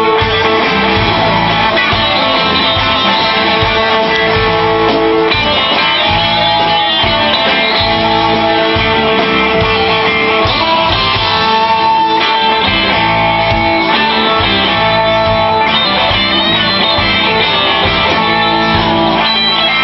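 Live rock band playing: strummed acoustic guitar and electric guitars over a drum kit.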